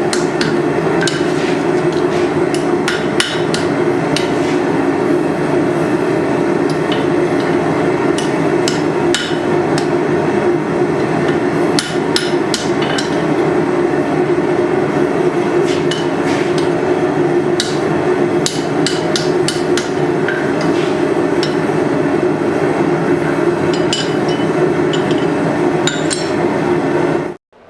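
Hand hammer striking hot steel on an anvil while forging a tomahawk head, in irregular blows over a steady loud roar. The sound cuts off abruptly near the end.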